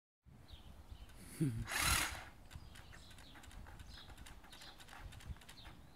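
Stihl battery pole hedge trimmer given a try: about one and a half seconds in a short rising whir and burst of noise that stops almost at once, followed by a run of faint clicks. The trimmer fails to keep running, a fault that comes with its battery light flashing red though the battery is fully charged.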